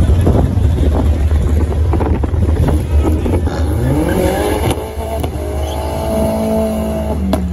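Volkswagen 1.8-litre turbocharged four-cylinder engines at a drag-strip start line over a steady deep rumble. The revs climb about halfway through, then hold at a steady note near the end, with a sharp click just before the end.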